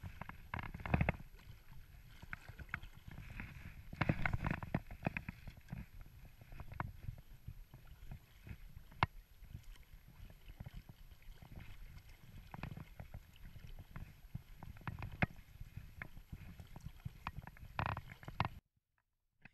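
Lake water splashing and sloshing close to a float tube, with a low rumble and scattered sharp clicks and knocks; louder splashy bursts about a second in, around four seconds in and near the end.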